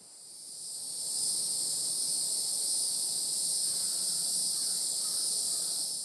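Steady, high-pitched buzzing of insects singing in the woods, swelling in over the first second and then holding level.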